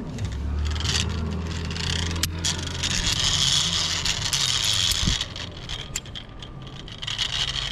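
Zip-line pulley running along the steel cable: a whirring, scraping hiss over a low hum that swells and then fades after about five seconds.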